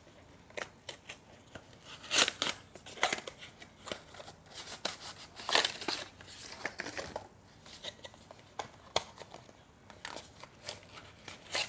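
White cardboard product box being unpacked by hand: irregular rustles, scrapes and light taps of cardboard and paper as the box is opened and its inner tray and paper insert are taken out. The loudest rustles come about two seconds in and just before the end.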